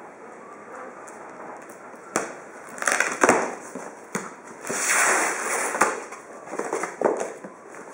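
Cardboard shipping box being opened: packing tape slit with a utility knife and the cardboard flaps pulled apart. The sound is a series of sharp clicks and scraping rustles, loudest about five seconds in.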